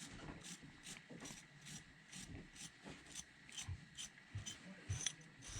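Wire brush scrubbing a furnace's crusty flame sensor clean, a quick run of short scratchy strokes, about two to three a second, with a few light knocks in the second half.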